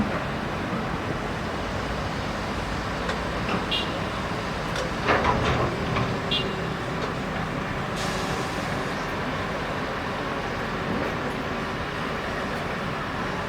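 Excavator's diesel engine running steadily under work, with a brief clatter about five seconds in.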